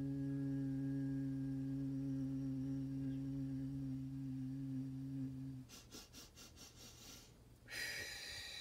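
A voice holding one long, low hummed note that stops about five and a half seconds in. A quick run of clicks follows, then a high ringing sound starts near the end.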